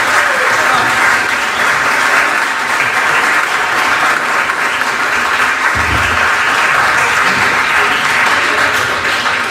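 Audience applauding with steady, dense clapping at the end of a live acoustic band's song.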